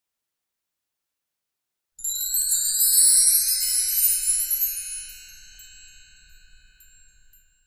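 Silence, then about two seconds in a bright, high sparkling chime sound effect starts suddenly, with rising shimmering sweeps; it is loudest about a second after it starts, then rings away slowly and fades out.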